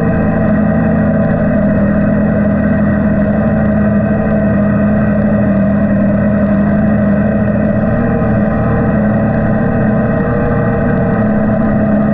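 Engine of the vehicle carrying the camera, running steadily at a constant speed. It makes an even drone with almost no change in pitch.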